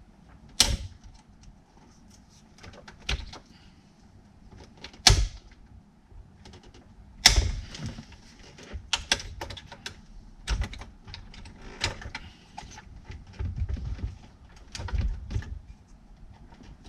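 Plastic wiring-harness connectors being unclipped and pulled from the back of a car radio head unit: a string of sharp plastic clicks and knocks with rattling between, the loudest snaps about half a second, five seconds and seven seconds in.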